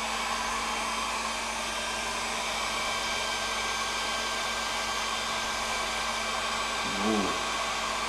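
Handheld hairdryer running steadily: an even blowing rush of air with a constant low motor hum.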